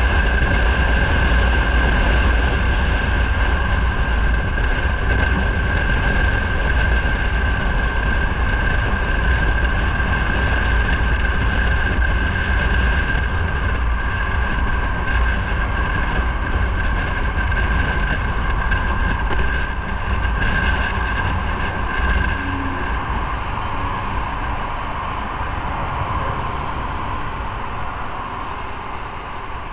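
Motorcycle riding along a city road: steady wind rush with heavy low buffeting, plus engine and road noise. It grows gradually quieter toward the end as the bike slows into traffic.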